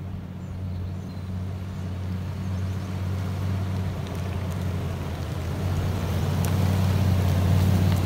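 Nissan Titan pickup's V8 engine running at a steady low pitch as the truck approaches, growing steadily louder and peaking as it passes close by near the end.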